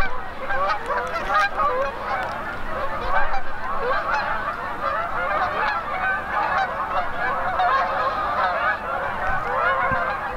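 A large flock of geese flying overhead, many birds honking at once in a dense, continuous chorus.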